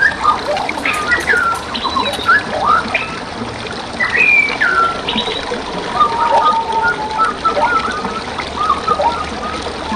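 Songbirds singing and calling, a busy run of quick whistled notes and chirps that slide up and down, over the steady rush of flowing forest water.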